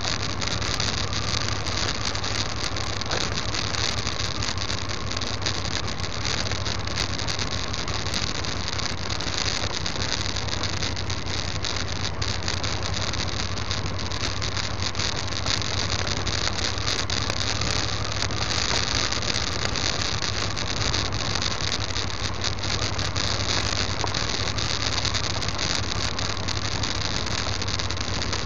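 Vehicle driving along a dirt track, with steady engine and road noise as heard through a dashcam in the cab, and a constant scatter of small ticks from gravel and grit under the tyres.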